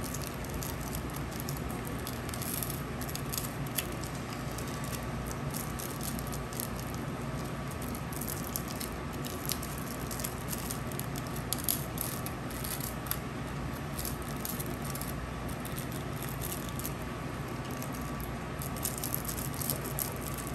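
Scattered light clicks and rattles of small objects being handled, over a steady hum.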